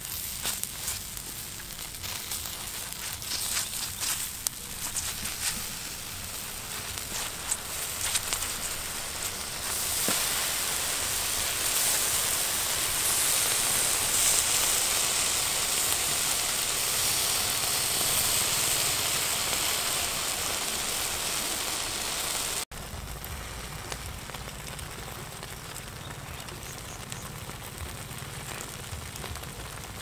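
Charcoal embers crackling and meat sizzling as a whole bird roasts on a spit over the coals. A louder, steady high hiss sets in about a third of the way through. It cuts off suddenly about three quarters through, and quieter crackling carries on after it.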